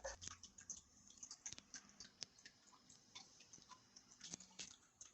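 Faint, irregular small clicks and taps of a box and its packaging being handled.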